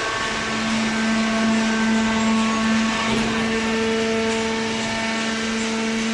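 Hydraulic cardboard baler running, its electric motor and hydraulic pump giving a steady hum over mechanical noise. The hum's tone shifts a little about three seconds in.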